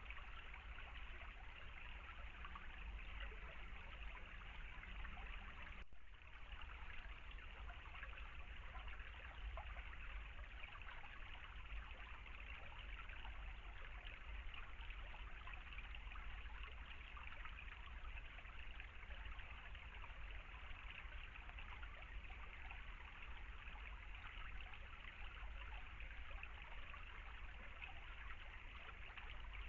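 River water flowing steadily, with a momentary dropout about six seconds in.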